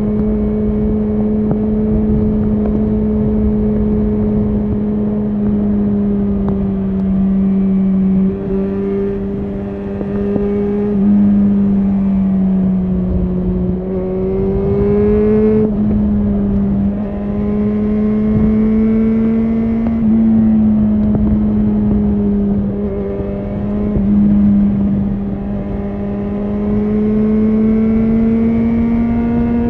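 Yamaha XJ6N's 600 cc inline-four running through a Shark Street GP full exhaust system while riding, at fairly steady revs. The pitch shifts in small steps a few times and climbs before dropping sharply about fifteen seconds in.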